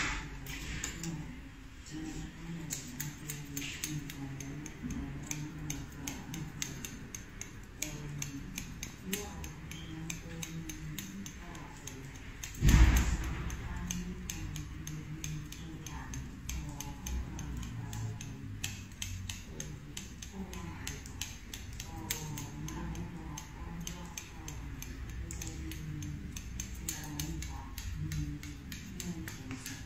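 Barber's scissors snipping a beard over a comb, a steady run of small, quick clicks, with one loud thump about halfway through.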